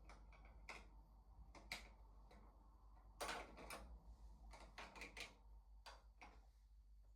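Faint, irregular clicks and knocks of small hard objects being handled, a few at a time, with the loudest cluster a little past the middle.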